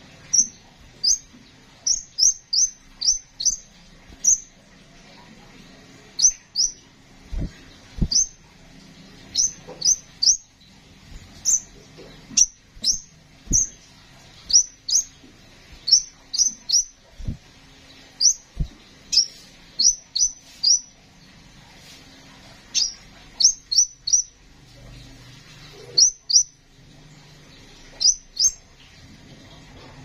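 Crimson sunbird calling: sharp, high chirps, singly and in quick runs of two to four, repeated all through with short gaps.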